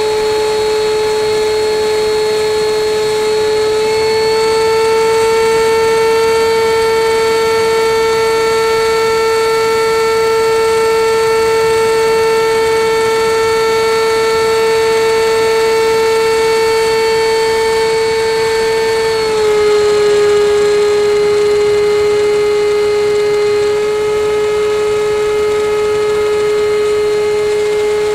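Radio-controlled L-39 Albatros model jet in flight, heard from on board: a steady high whine from its engine over a rush of air. The pitch steps up slightly about four seconds in and drops a little around twenty seconds, with the throttle.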